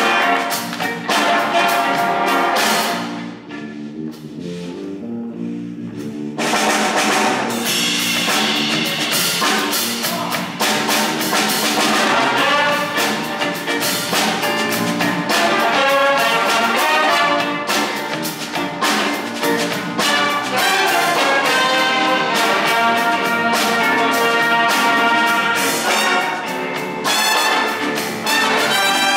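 Big band playing a funk tune: saxophones, trombones and trumpets over electric guitar, piano and drum kit. About three seconds in the music drops to a thinner, quieter passage, and the full band comes back in about three seconds later.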